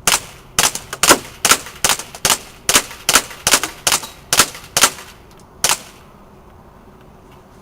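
HFC M190 airsoft pistol firing a string of about a dozen shots at an even pace of roughly two a second, each a sharp crack, with the last one after a short pause.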